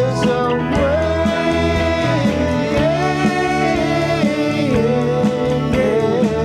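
A band playing a country-style song, with bass notes, regular drum hits and guitar, and a lead melody line that slides between notes over the top.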